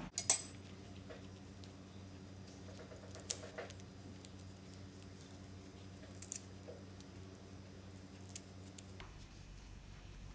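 A sharp click near the start, then scattered small crinkles and ticks of a banana leaf being folded and pinned shut with a toothpick, over a faint steady hum.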